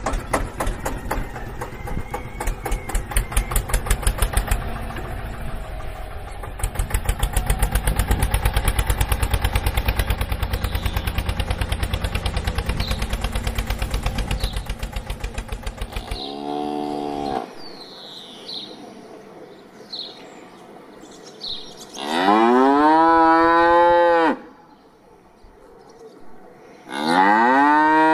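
A tractor engine chugs in a fast, even beat for a little over half the time, then stops. A cow then moos three times: one short moo, then two long, loud moos that rise and fall in pitch.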